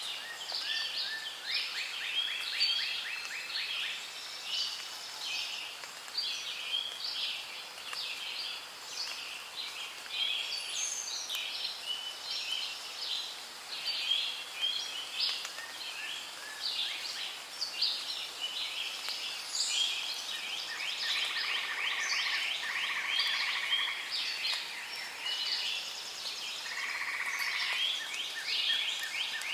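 Rainforest ambience: a dense chorus of bird calls and chirps with pulsing trills, continuing without pause. Near the end a few steadier, held calls join in.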